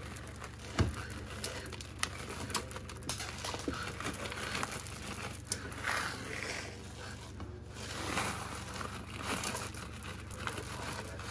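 Wooden spoon stirring a sticky mix of puffed rice cereal, melted marshmallow and mini M&M's in a frying pan: irregular crackling and rustling with scattered clicks of the spoon against the pan, over a steady low hum.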